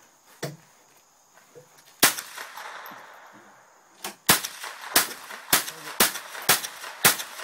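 Rifle shots: a single report about two seconds in, then a quick string of six shots about half a second apart, fired at a tin can.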